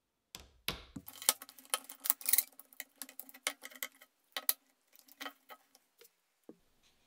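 Hand-worked one-handed bar clamp with a plastic body and a steel bar, its trigger and bar clicking and rattling in quick irregular runs. The run comes after a low knock at the start and thins to a few scattered clicks after about four and a half seconds.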